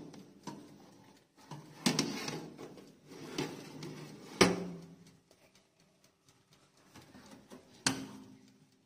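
Metal baking tray sliding into a Mito MO-888 electric oven, scraping on the rack with a few knocks that ring briefly, the loudest about four and a half seconds in. The oven's glass door shuts with a clunk near the end.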